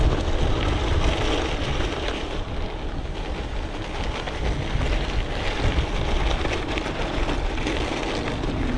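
Strong wind buffeting the microphone of a camera on a moving bicycle: a steady, loud rumbling rush.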